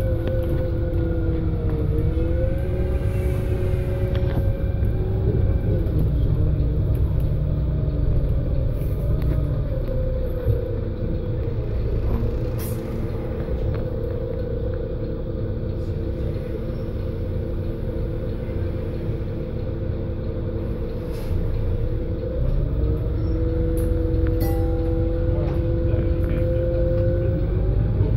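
Interior of a Volvo Wright Eclipse Urban 2 single-deck bus under way: a steady low rumble with a drivetrain whine on top. The whine rises and falls in pitch as the bus speeds up and slows, holding level through the middle and climbing again near the end.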